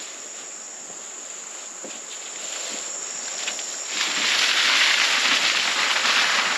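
Steady high-pitched insect chorus from late-summer field insects, with soft footsteps in grass; about four seconds in a much louder rustling hiss comes up and holds.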